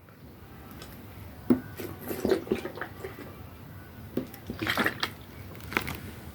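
Drinking from a 2-litre bottle of fizzy drink: scattered liquid sloshing and swallowing sounds with a few clicks, loudest about two and about five seconds in.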